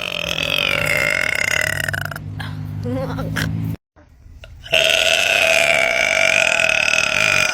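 A person burping: two long, drawn-out burps of about three seconds each, the second starting about a second after the first ends.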